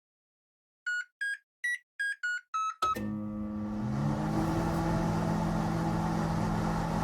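Microwave oven keypad: about seven quick electronic beeps of differing pitch as buttons are pressed. About three seconds in, the microwave starts and runs with a steady hum.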